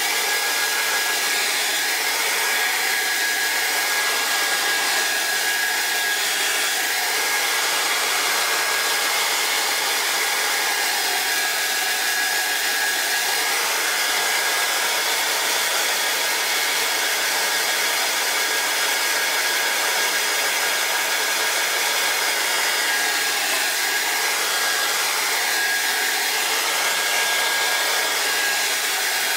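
Hand-held hair dryer blowing steadily, drying a wet watercolour wash on paper; a thin steady whine sits over the rush of air, its tone shifting slightly as the dryer is moved about.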